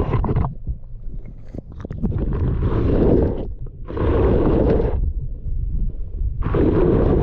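Water splashing and sloshing in four bursts about a second long, roughly every one and a half to two seconds, over a steady low rumble.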